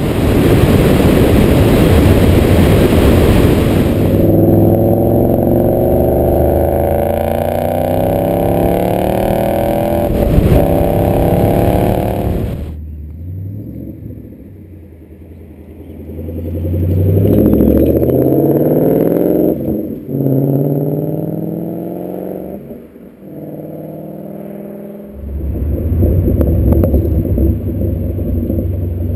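Ford Mustang GT's 5.0-litre V8 through a Roush exhaust, accelerating hard with the engine note climbing and cutting off sharply at gear changes, then dropping away. It climbs again and ends on a steady, strong low note.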